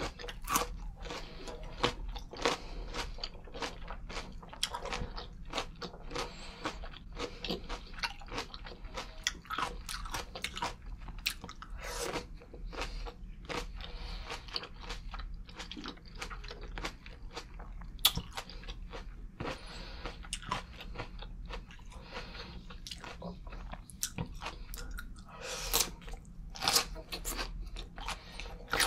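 Close-miked chewing of green grapes and raw carrot: a steady run of crisp crunches and bites, with one especially loud crunch about eighteen seconds in.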